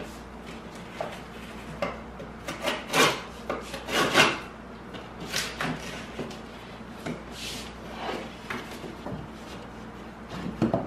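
Razor knife scraping and cutting along the edge of a piece of drywall, trimming it to fit: a run of uneven rasping strokes. Near the end comes a short cluster of knocks as the piece is fitted into the wall.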